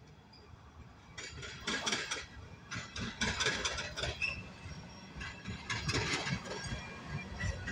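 Railroad tank cars of a freight train rolling past, their steel wheels clanking and clattering over the rail joints in uneven bursts that begin about a second in.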